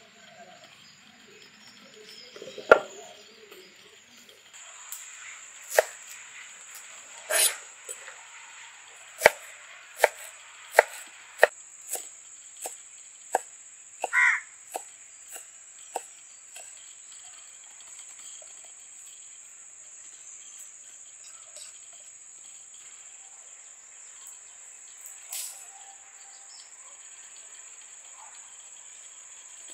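A kitchen knife chopping fresh coriander on a wooden cutting board, about a dozen sharp knocks at irregular spacing between about six and sixteen seconds in, after a single louder knock about three seconds in. Under it a steady high-pitched cricket trill starts about four seconds in.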